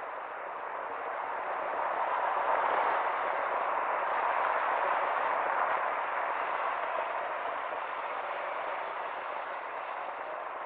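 City traffic passing through an intersection: an even hiss of tyres and engines that swells about two seconds in as cars cross, then eases off.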